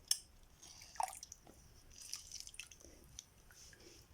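A lime half being pressed in a hand juice squeezer, its juice dripping and squishing out into the water, with a few small clicks of the squeezer.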